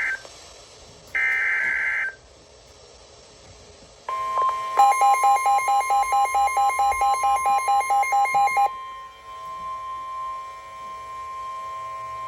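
Emergency Alert System data bursts, the warbling digital tones that mark the end of a broadcast alert, sound twice in the first two seconds. About four seconds in, a steady NOAA Weather Radio alert tone begins and holds to the end, with a fast pulsing beep at about five a second over it for roughly four seconds.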